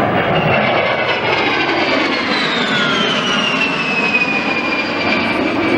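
A-10 Thunderbolt II's twin TF34 turbofan engines on a low pass, a loud jet rush with a high whine that falls steadily in pitch as the aircraft goes by, then levels off.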